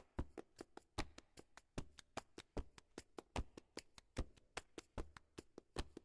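Background music track of dry percussion only: a strong hit with a low thump a little more than once a second, with quicker light clicks and taps in between, in a steady repeating pattern.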